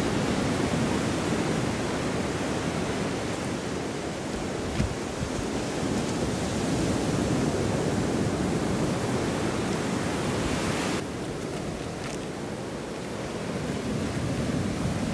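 Steady rush of surf breaking on a sandy beach, with wind on the microphone; it eases about eleven seconds in and builds again toward the end.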